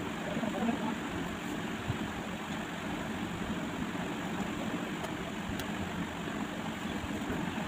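Steady, even rushing noise, like a running machine or airflow in the room, with a few faint soft ticks.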